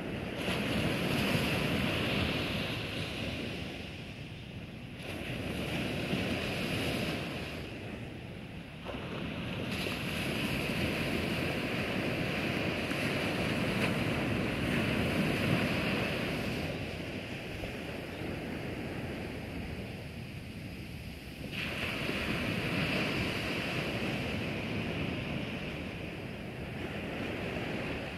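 Small ocean waves breaking on the shore and washing up the beach, the surf swelling and fading again every few seconds.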